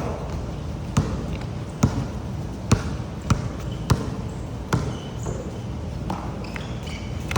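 A series of sharp knocks, roughly one a second, over a steady background hiss.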